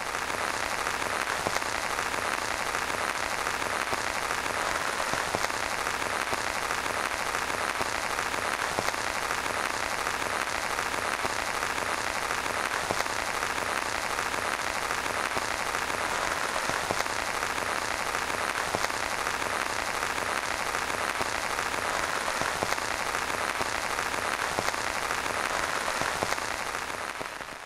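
Heavy monsoon rain falling steadily, a dense even patter of drops that fades out near the end.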